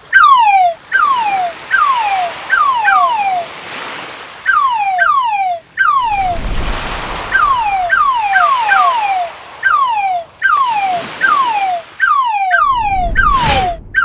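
A crab sound effect: short whistling chirps, each falling in pitch over about half a second, repeated in irregular runs of two to four, over a wash of ocean waves that swells and fades. A sharp swish cuts in near the end.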